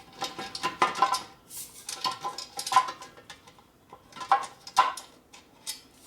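Steel motorcycle gas tank being shifted and set on the frame mounts: a dozen or so metal clinks and knocks, each with a short ring, as the tank bottom bumps against the mounting bolts.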